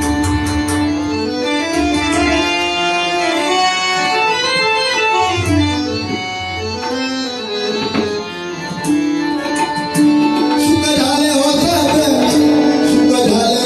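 Bhajan instrumental accompaniment: a harmonium plays a held, stepping melody over hand-drum strokes. About eleven seconds in, small hand cymbals join with a bright jingling.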